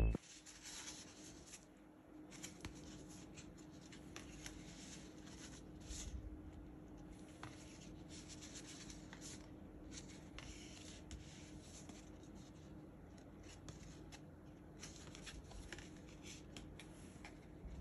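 Faint handling noises: soft rustles and scattered small clicks, over a low steady hum.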